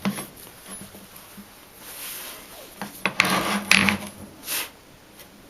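Metal parts being handled: scraping and rubbing with a few clinks, in irregular bursts, loudest a little under four seconds in.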